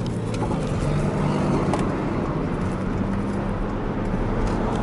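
A car's engine and tyre noise, heard from inside the cabin while driving in traffic: a steady low hum under a rushing road noise.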